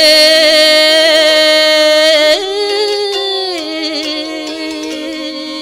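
A singer holding one long, wavering note of a Balinese geguritan verse. The pitch rises about two seconds in and slides back down a little past the middle. A quieter melody of stepped notes runs beneath it.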